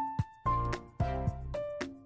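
Instrumental background music: a melody of short, sharply struck notes over a bass line, with a new note about every half second.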